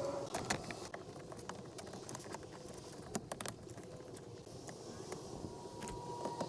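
Scattered light clicks and knocks of hand work on a car door, a few in quick succession about halfway through, over a low steady background noise.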